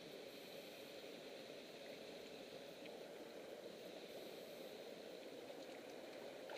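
Faint, steady rush of a small rocky mountain stream flowing.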